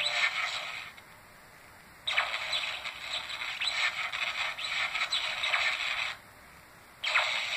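Power Action Pikachu plush toy playing its built-in sound clips in three bursts: a short one at the start, a long one of about four seconds while its cheeks light up, and a short one near the end. The sound has no low end.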